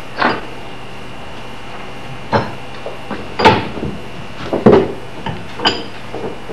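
A handful of separate wooden and metal knocks and clunks as a wooden axe handle and hand tools are handled at a bench vise, over a steady low hum.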